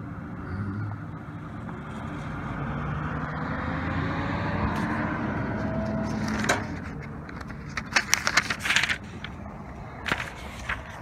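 A passing road vehicle's engine and tyre noise swells and then falls away over the first six seconds or so. It is followed by a run of sharp metallic clicks and clinks as sockets are handled in a socket set.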